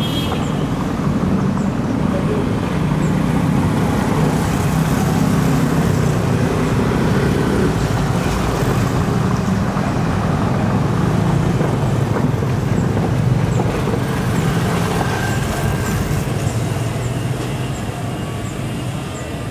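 Street traffic: car and motorcycle engines and tyres passing at low speed, swelling through the middle and easing off near the end.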